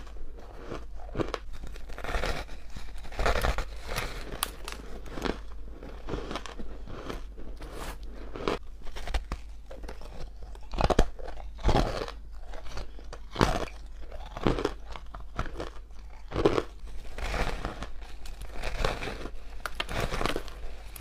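Close-miked biting and chewing of hard crushed ice: a continuous run of sharp, brittle crunches several times a second, with the loudest bites around the middle.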